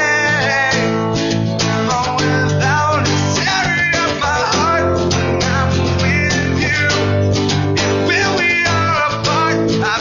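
Acoustic guitar music: two acoustic guitars playing a song together.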